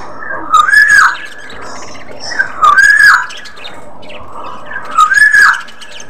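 A bird's squawking call, rising then falling in pitch, repeated three times at even intervals about two seconds apart, each with a raspy edge.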